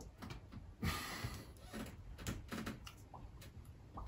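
Tarot cards being handled and laid down: a run of soft clicks and brief rustles at irregular intervals, with a louder rustle about a second in.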